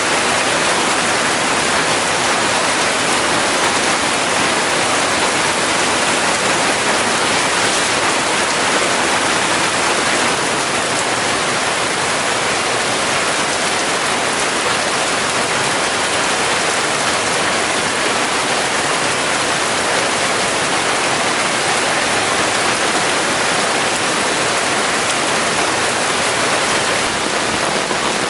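Heavy rain falling in a steady, loud downpour.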